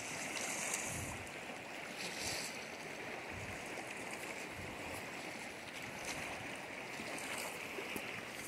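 Steady wash of water, with a few short splashes of a wet hand working through floating debris.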